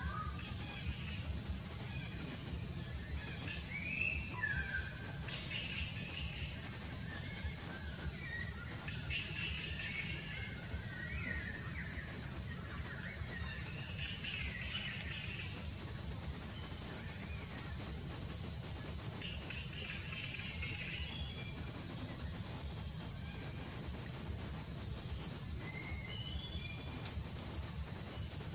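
Steady, high-pitched drone of insects in the forest, with scattered short chirping calls throughout over a low background rumble.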